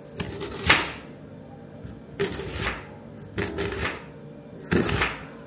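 Kitchen knife slicing through a raw onion onto a cutting board: four slow cuts, each a short crunch of the blade through the onion ending in a tap on the board.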